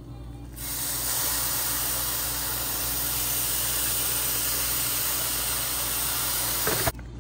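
Blended liquid poured onto hot browned rice in a skillet, sizzling steadily. The sizzle starts about half a second in and cuts off abruptly just before the end.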